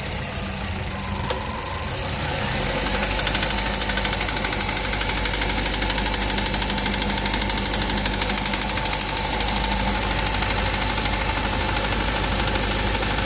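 Chevrolet Cobalt engine running. About two seconds in, its speed rises, then holds steady with a fast, regular knock over the engine note. This is the unexplained knock that appears around 2000 rpm.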